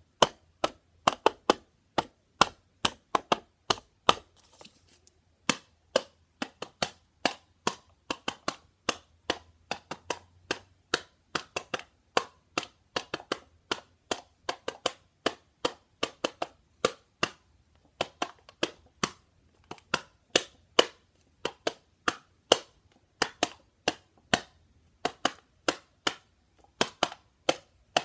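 Small homemade drum tapped in a beat of sharp, short hits, about two or three a second, with a brief pause about four seconds in.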